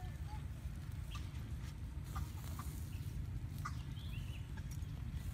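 Chickens clucking here and there, over a steady low rumble. A few short, light clicks come from a knife cutting food against a bowl.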